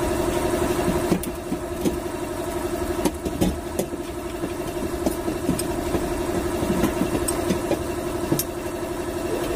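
Scattered light metallic clicks and taps, about ten, from a wrench and screwdriver working the rocker-arm adjusting screws of a Mitsubishi L300 4D56 diesel during a valve clearance adjustment. A steady mechanical hum runs underneath throughout and is the loudest sound.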